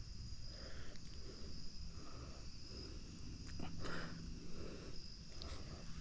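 Faint creekside ambience: a steady high-pitched whine, with soft rustles and a few light clicks.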